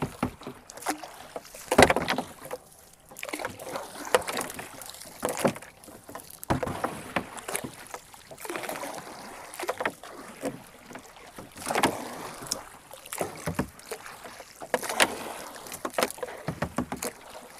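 Small wooden boat being poled across the water: water sloshing and splashing at the hull, with irregular splashes and knocks every second or two, the loudest about two seconds in.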